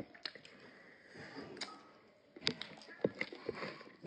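Quiet eating sounds: scattered small clicks and smacks from people chewing and eating with their hands from plates.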